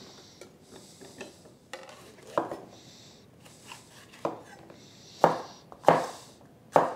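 Chef's knife chopping a red bell pepper on a wooden cutting board: a few soft scrapes and handling sounds at first, then separate knife strikes on the board, with three sharp, loud chops in the last two seconds.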